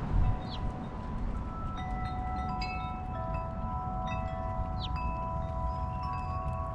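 Wind chimes ringing, several notes struck from about a second in and overlapping as they sustain, over the low rumble of wind on the microphone.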